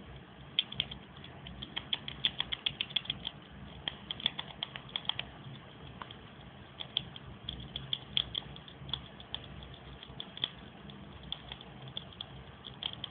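Chipmunk gnawing and cracking sunflower seed shells: rapid clusters of small crisp clicks, densest in the first five seconds, then sparser and more spread out.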